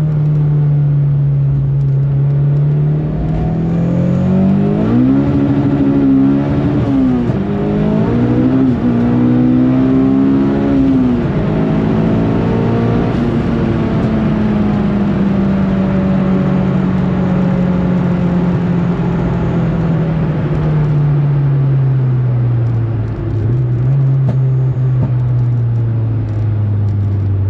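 Turbocharged Honda K20 four-cylinder engine, heard from inside the car's cabin, pulling up through the revs with a drop in pitch at each of two gear changes in the first dozen seconds, then easing off with the note falling slowly as the car slows. It is running on a low wastegate spring while the relocated wastegate is tested for boost creep.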